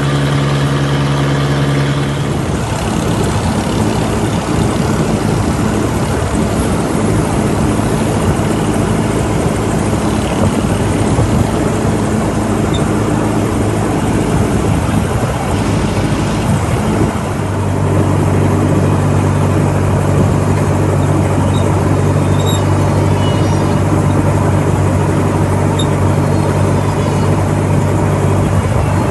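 A motor engine running steadily, its note changing about two seconds in and dropping lower and stronger about seventeen seconds in.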